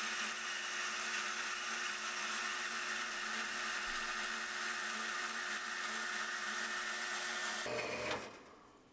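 Small metal-cutting bandsaw running steadily as its blade cuts through half-inch tellurium copper plate. Near the end the sound changes briefly, then dies away as the saw stops.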